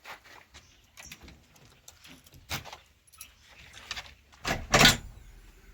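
Scattered light clicks and knocks, with a loud clunk near the end.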